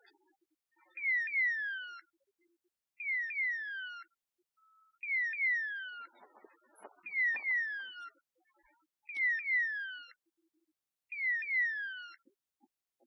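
Dog's beeper collar in point mode: a pair of falling electronic chirps, repeating about every two seconds, the signal that the setter has stopped and is standing on point. Faint brush rustling partway through.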